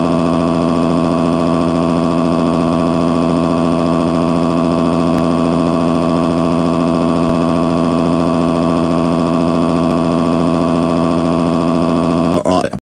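A loud, steady drone with many overtones, held at one unchanging pitch for about twelve seconds and cutting off abruptly near the end.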